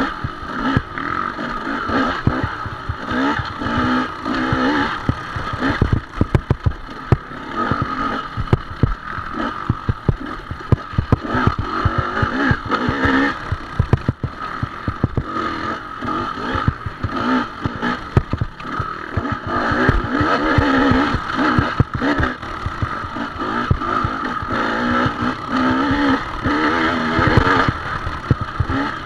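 Dirt bike engine revving up and down without a break as the bike rides a rough, rooty trail, with frequent knocks and clatter from the bike over the bumps.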